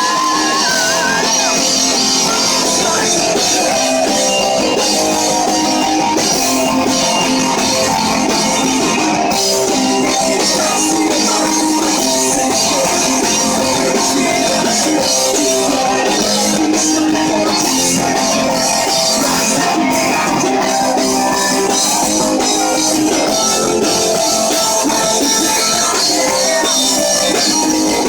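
Rock band playing live at full volume, with electric guitars and a drum kit driving steadily.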